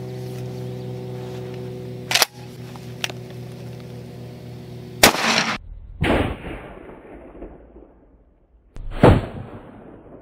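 A 12-gauge shotgun fires a 00 buckshot shell into a ballistic helmet, a single sharp report about two seconds in. The shot is then heard again twice more in replays, once slowed down into a long, fading boom. A steady electrical hum runs underneath before the first shot.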